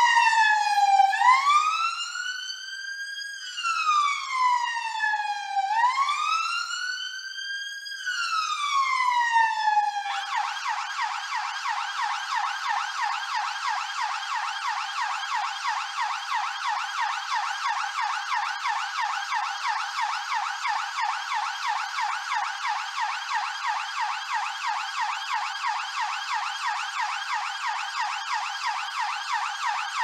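London police car siren: a slow wail rising and falling in pitch for about the first ten seconds, then switching to a fast yelp that sweeps several times a second for the rest.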